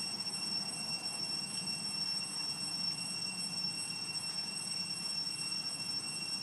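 Steady background ambience: a low, even rumble with several constant high thin tones over it, and no distinct event standing out.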